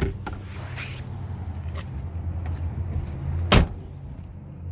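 A pickup truck's rear door shut with a single loud thump about three and a half seconds in, after a few light clicks in the first second, over a steady low hum.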